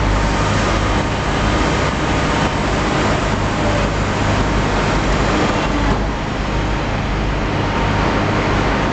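Vertical baler's hydraulic press running steadily: a loud, even machine noise with a low hum and a faint steady whine, easing slightly about six seconds in.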